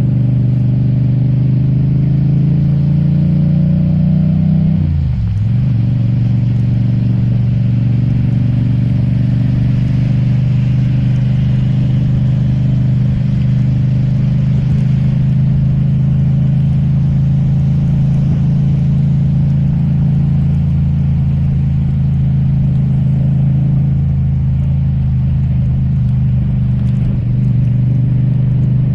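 Yamaha MT-07's parallel-twin engine running under way, with wind and road noise. Its pitch rises over the first few seconds, dips sharply about five seconds in, then holds steady at a cruise.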